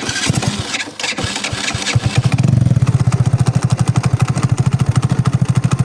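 Motorcycle engine starting, running unevenly for about two seconds, then settling into a steady, rapid idle. It is knocking from under the right-side clutch cover, a fault later traced to a loose clutch nut working along its thread with the clutch.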